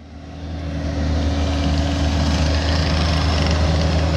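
Bobcat T320 compact track loader's diesel engine running steadily as the machine works loose dirt, growing louder over the first second.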